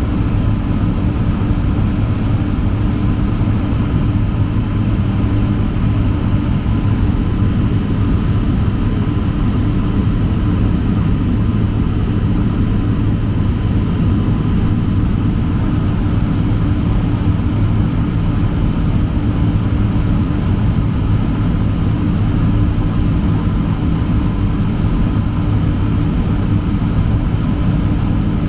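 Steady low rumble and hum heard inside the cabin of a Boeing 767-300 on the ground with its jet engines idling, a few faint steady tones over it.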